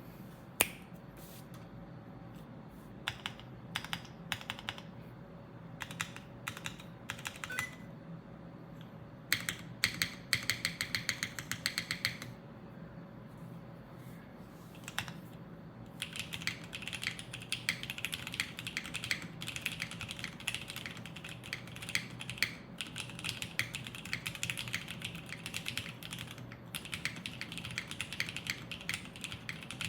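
Typing on a custom Neo65 mechanical keyboard (aluminium plate, O-ring mount) with 1984 Cherry Vintage Black switches and Cherry OG ABS double-shot keycaps, each keystroke a deep clack. Scattered single keystrokes and a short fast run come at first, then steady fast typing from about halfway through.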